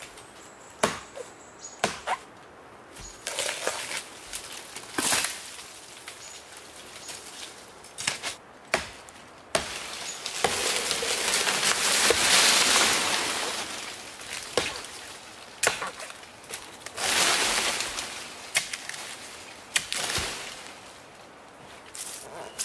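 Machete chopping into a fibre-covered trunk: a string of sharp hacks, a second or more apart, with two longer stretches of rustling and scraping, the longer one about ten seconds in.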